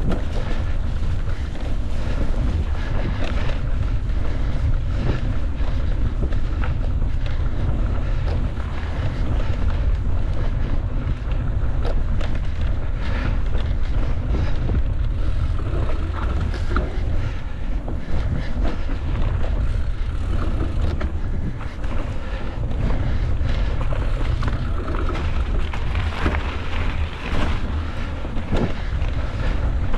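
Mountain bike ridden over rough trail: wind rushes over the microphone in a steady low rumble, with many short rattles and knocks from the bike running over the ground.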